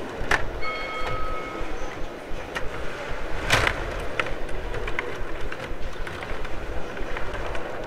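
Rod hockey game in play: the control rods rattling and clicking as they are pushed, pulled and twisted, with the puck knocking against the players and boards. A few sharper clacks stand out, one just after the start and one about three and a half seconds in.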